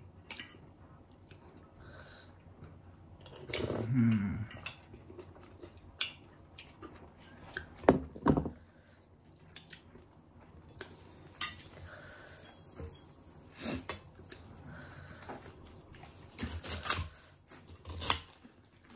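Forks and spoons clinking and scraping against ceramic bowls and plates while two people eat, with some chewing. Two sharp clinks come just before eight seconds in, the loudest sounds here, and a brief low voice murmur comes about four seconds in.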